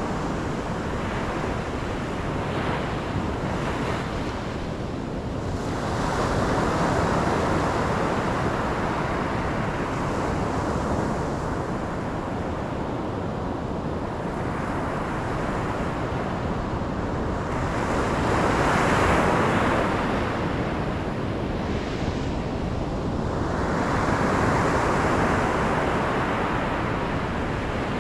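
Ocean waves washing onto the shore in a continuous surf roar, swelling as larger waves break about six seconds in, again past the middle, and near the end.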